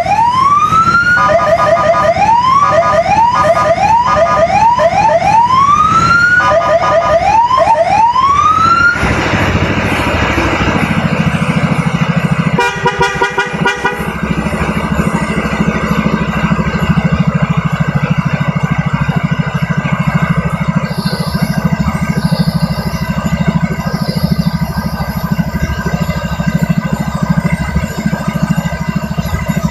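Electronic police-style siren on a Yamaha XMAX scooter cycling through rising whoops and short stepped tones for about nine seconds. It then stops and the scooter's engine is left running steadily at idle, with a short buzzing horn-like tone about 13 seconds in.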